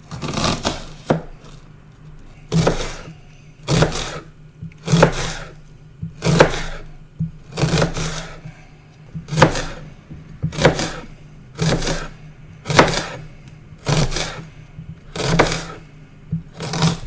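Knife chopping through an onion in slow, steady strokes, about one cut a second, each a short crunch ending in a dull knock.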